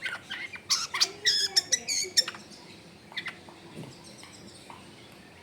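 Long-tailed shrike singing a quick run of loud, sharp notes for about two seconds, followed by a few fainter notes about three seconds in.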